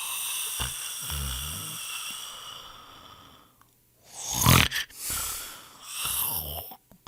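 A person snoring. A long breath carries a rattling snore about a second in and fades away, and after a short pause a loud snort comes a little past the middle, followed by two shorter snores.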